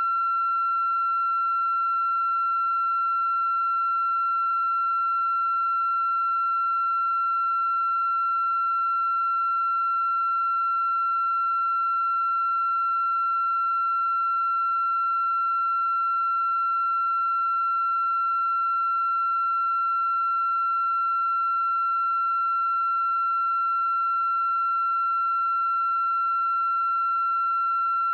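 A steady, high-pitched electronic tone with fainter higher overtones, unchanging in pitch and loudness, with a tiny blip about four and a half seconds in.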